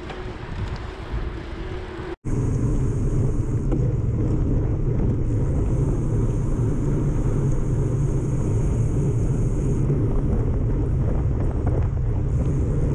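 Steady wind rush on the microphone and tyre rumble on asphalt from a mountain bike moving at speed, heard through a camera mounted on the bike. After a brief dropout about two seconds in, it becomes louder and deeper.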